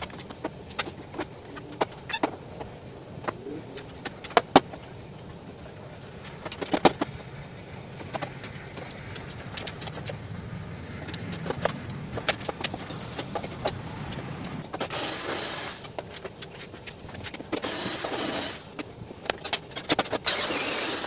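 Scattered clicks and metallic clinks of hand tools working on a scooter's plastic body panels as the side fairing screws are undone. Near the end come three rasping bursts, each about a second long.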